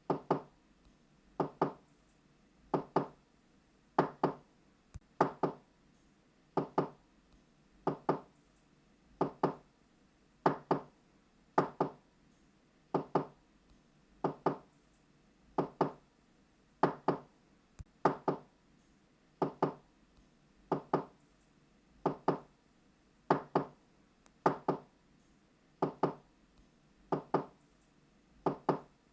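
Knocking on a door, double knocks ('knock knock') repeated about every second and a half, each knock short and sharp with a slight ring in a small room.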